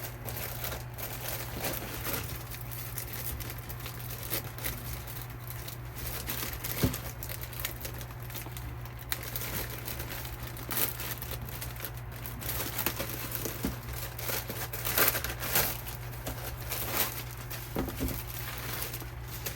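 Packaging crinkling and crumpling in irregular handfuls as slippers are unwrapped, with a few sharper crackles and tearing sounds.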